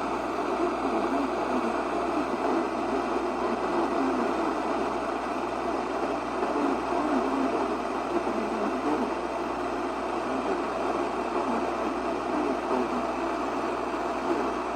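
Steady hiss of static from a weather radio receiver.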